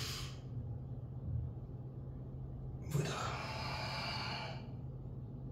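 A man's heavy breathing during a yoga flow: a breath trails off at the start, then, right after the spoken cue 'выдох', a long noisy exhale lasts about a second and a half. A steady low hum sits underneath.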